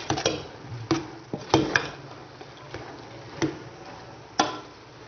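Spoon knocking and scraping against a metal cooking pot while noodles and vegetables are stirred: a string of irregular clinks, the sharpest about a second and a half in and near the end.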